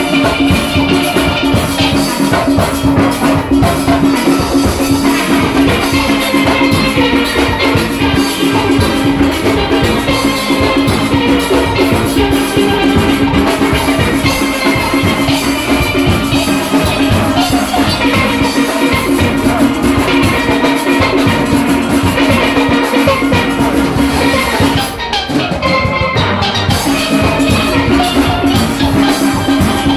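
A full steel orchestra playing live: many steel pans struck with sticks, carrying melody and harmony over a drum kit and percussion keeping a driving rhythm.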